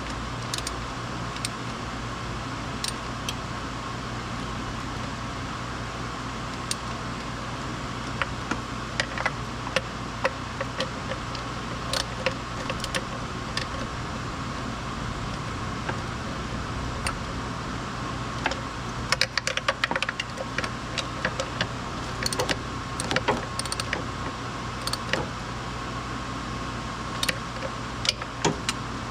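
Scattered metallic clicks and clinks of hand tools being handled, with a quick run of clicks about two-thirds of the way through, over a steady background hum.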